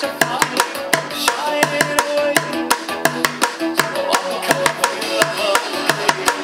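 Drumsticks striking an upturned plastic bucket drum in a steady ta-ta-ti-ti-ta beat, alternating the low centre note and the side, with sharp hits several times a second. It is played along with a pop song recording, whose synths and singing sound beneath the strikes.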